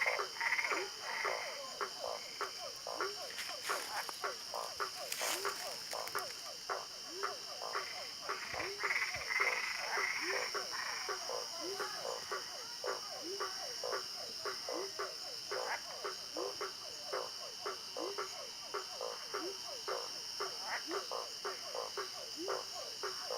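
A chorus of frogs calling: many short, overlapping croaks, several a second, over a steady high-pitched drone.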